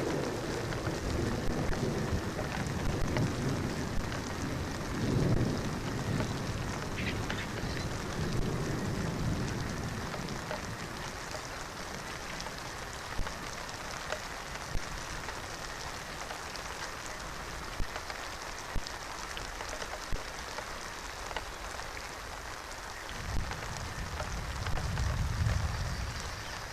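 Steady rain falling, with scattered drop ticks and a few low rumbles that swell and fade, the last one near the end.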